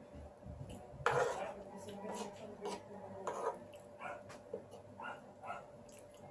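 Close-miked eating sounds from a spaghetti mukbang: chewing and slurping of spaghetti with short wet mouth clicks. A louder noisy burst comes about a second in.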